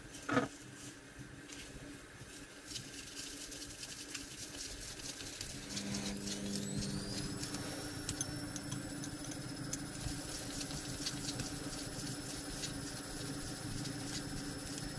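Faint small clicks and scrapes of an RC car's differential gears and a screwdriver being handled and fitted together. A faint high whine rises in pitch about six seconds in and then holds steady.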